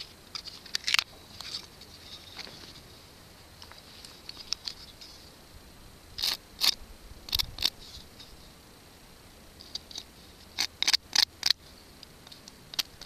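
Folding knife blade scraping and shaving the edge of a thin weathered wooden board in short, sharp strokes, coming in three quick groups.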